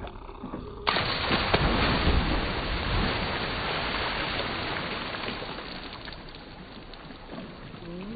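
Two children plunging into lake water from a dock: a sudden heavy splash about a second in, then water churning and settling for several seconds.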